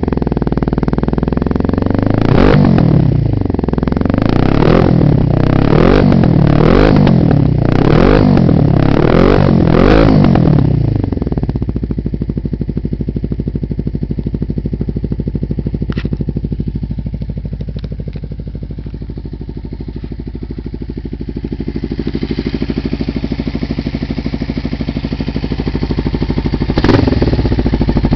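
Kawasaki GPZ 500's parallel-twin engine through a Barracuda aftermarket silencer with its dB killer baffle removed: a quick series of throttle blips, rising and falling about once a second, then a steady idle, with another rev near the end.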